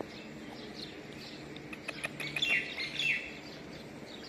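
Small birds chirping, with short repeated chirp notes and two louder falling calls in the middle.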